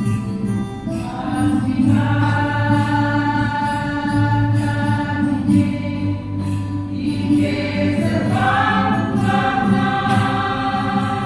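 Church choir singing long held chords over a low instrumental accompaniment. The voices come in about a second in and move to a new, higher chord at about eight seconds.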